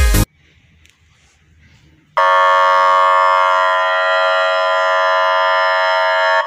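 Warning alarm device sounding one steady, harsh horn-like tone with no rise or fall in pitch. It starts about two seconds in and holds for about four seconds.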